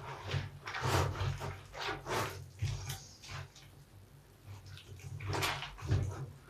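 Large bath sponge full of soap lather being squeezed and kneaded by hand, giving irregular wet squelches, with a quieter spell in the middle and a strong squelch near the end.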